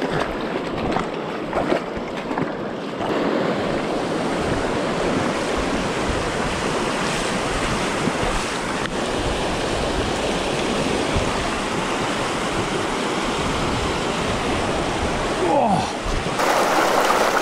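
Fast shallow river water rushing and splashing over stones close to the microphone, a steady rush, with a few sharp ticks in the first few seconds.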